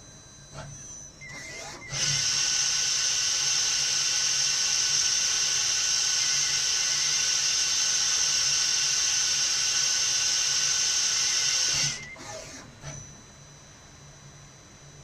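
Tsugami BS12 Swiss-type CNC lathe running: a loud, steady, high-pitched whine with hiss starts abruptly about two seconds in and holds for about ten seconds before cutting off.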